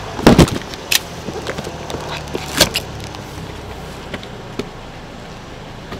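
Heavy knocks as a long cardboard box is handled and set down on a concrete driveway, the loudest a quick double knock just after the start and another about two and a half seconds in, with lighter taps and footsteps between. A steady low hum runs underneath.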